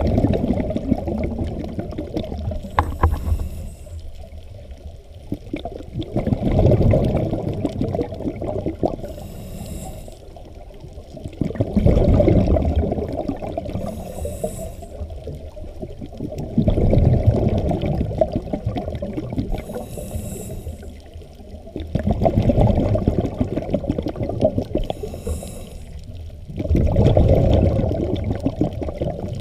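Scuba diver breathing through a regulator, heard underwater through the camera housing: six loud bubbling gurgles of exhaled air, each two to three seconds long and about five seconds apart, with a short faint hiss of inhalation between them.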